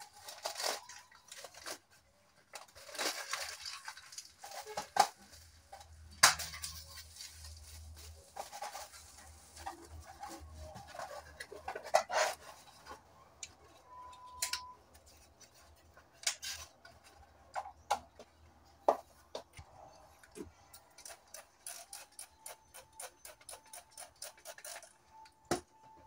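Handling noises: scattered clicks, taps and knocks, with bursts of rustling in the first several seconds and a quick run of clicks near the end. A short beep-like tone sounds about halfway.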